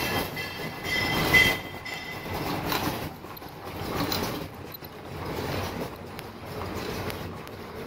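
Disposable flat mask making machine with earloop welders running: a continuous mechanical clatter that swells and eases about once a second, with a brief high-pitched squeal about a second and a half in.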